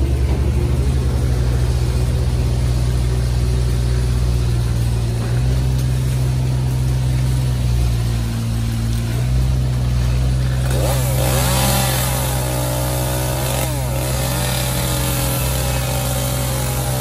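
An engine drones steadily and low throughout. About two-thirds of the way in, a chainsaw joins it, revving up and down.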